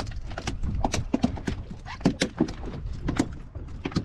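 A freshly caught bonito flapping on a fiberglass boat deck: a run of irregular knocks and slaps, several a second.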